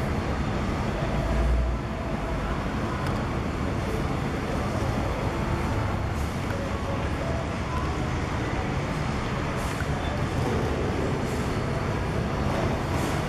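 Diesel engine of a city bus running as the bus pulls slowly into its bay, a steady low rumble that swells louder for a moment about a second in.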